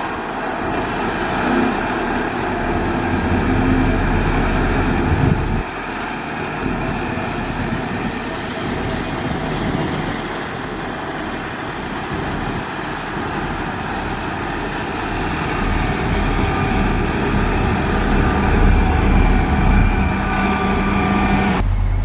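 Heavy diesel engines of road-building machines (motor grader, road rollers, dump truck) running steadily under load. The engine sound changes abruptly about five seconds in and again just before the end.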